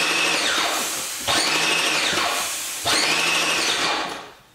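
Airless paint sprayer running with a loud hiss, its pump surging in a repeating cycle about every second and a half, then shutting off near the end.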